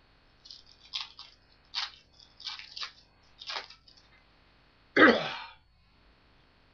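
Baseball cards being flipped and slid against each other by hand, a string of short rustles, then a single cough about five seconds in.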